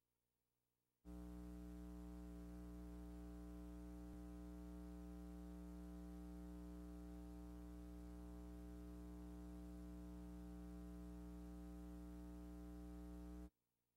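Steady electrical hum with many even overtones and a faint hiss, the kind of mains buzz carried on an old film's transferred soundtrack. It starts about a second in and cuts off about half a second before the end, with silence on either side.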